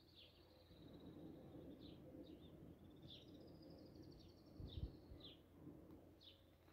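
Faint birdsong: short falling chirps, several of them, over a thin steady high note, with a brief low thump about two-thirds of the way through.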